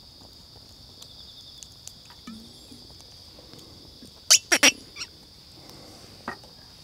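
Crickets chirring steadily in a high, even drone, with a quick cluster of three sharp clicks a little past four seconds in, the loudest thing heard, and a few fainter ticks.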